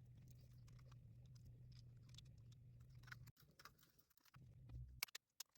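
Near silence: a low steady hum with faint scattered small clicks and taps. The hum cuts out abruptly about three seconds in, and a few slightly sharper clicks come near the end.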